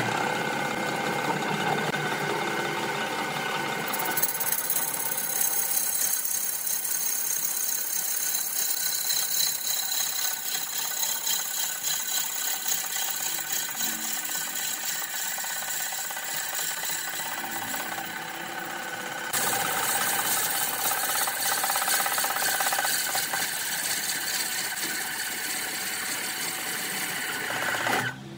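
Wood lathe spinning a redwood vase while a long hollowing bar cuts out the inside of its neck: a steady scraping of the cut with a fast, even pulse from the turning work. The cut gets brighter about four seconds in and louder again near twenty seconds.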